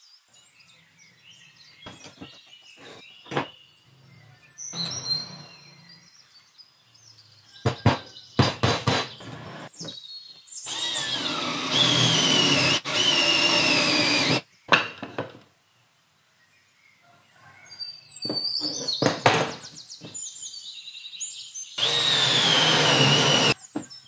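Cordless drill with a Forstner-type hinge-cup bit boring into a wooden board, with a few short trigger pulls followed by two longer runs. In the longer runs the motor's whine drops in pitch as the bit cuts. Handling clicks and knocks come before the drilling.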